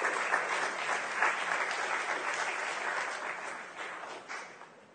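Audience applauding, thinning out and dying away over the last second or so.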